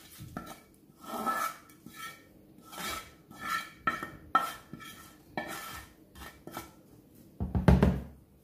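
Wooden spoon scraping and tapping against a non-stick frying pan in repeated short strokes, scraping out fried tempering. A dull thump sounds near the end.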